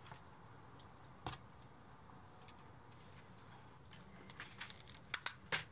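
Light clicks and taps: a single click about a second in, then a quick run of sharper clicks near the end.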